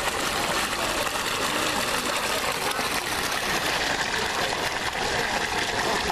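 Steady rush of water pouring and circulating in a turtle tank.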